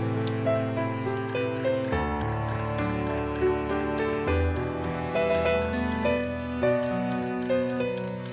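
Insect chirping: short, high-pitched pulses repeating at about four or five a second, starting about a second in, over soft piano-like background music.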